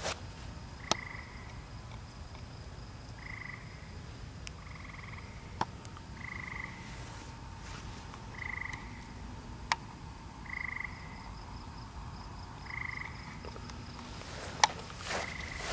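A frog calling: short buzzy croaks repeated about every two seconds, over a faint high steady trill. Four sharp clicks are scattered through and stand out as the loudest sounds.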